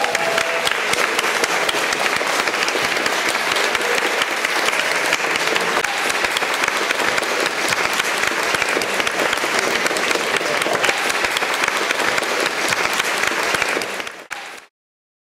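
Audience applauding steadily, stopping abruptly near the end.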